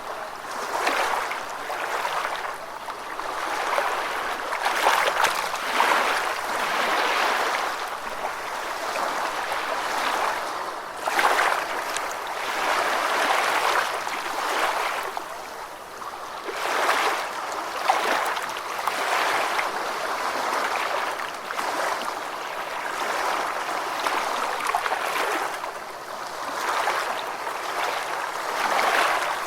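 Gentle ocean waves washing onto a beach, a steady rush of water that swells and ebbs every few seconds.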